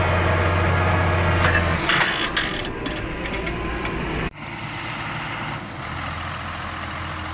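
John Deere 6530 tractor's diesel engine running steadily as it pulls a four-furrow reversible plough through the soil, with a few metallic knocks about two seconds in. The sound changes abruptly just past four seconds and is a little quieter afterwards.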